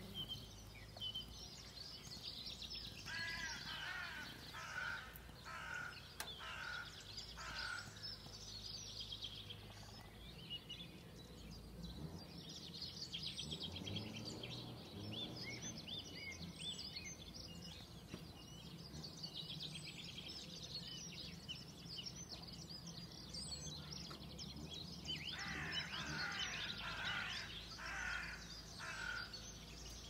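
Spring birdsong: several birds singing and calling at once. A run of louder repeated calls comes a few seconds in and again near the end, over a steady low background rumble.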